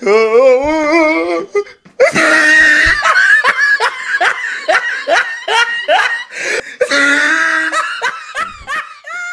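A person laughing hard: a drawn-out, wavering laugh, then after a brief break a long run of rapid ha-ha pulses, about three a second.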